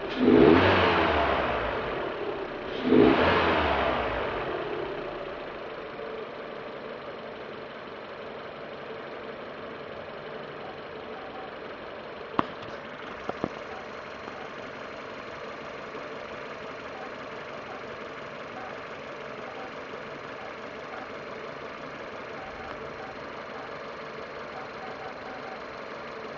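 Citroën C4 engine blipped twice, then settling to a steady idle with a faint regular noise, which the owner suspects comes from the alternator or timing belt area. A few sharp clicks about halfway through.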